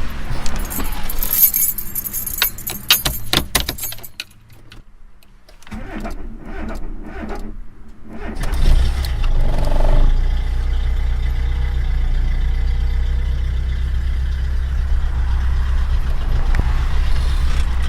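Car keys jangling at the ignition, then the starter cranking for about two seconds on a weak battery. The engine catches about eight seconds in, revs briefly, then settles into a steady idle.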